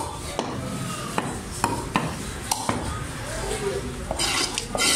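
Large knife chopping fish on a wooden block: several sharp single chops at uneven intervals, then a burst of scraping noise near the end.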